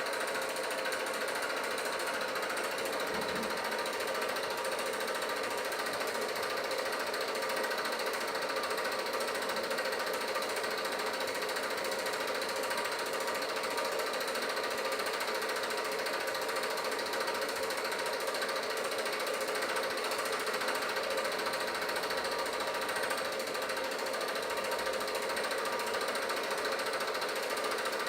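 8mm film projector running, a steady rapid mechanical clatter from its film-advance mechanism.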